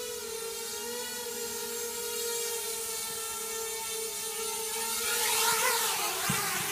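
Small electric tricopter's motors and propellers buzzing steadily in flight, one pitched whine with many overtones. About five seconds in the buzz grows louder and the pitches waver as the craft drops low toward the floor.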